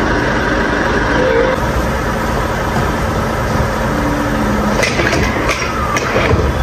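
Truck engine idling steadily, with several sharp metallic clacks from about five seconds in as the rear door locking bars of the box body are unlatched.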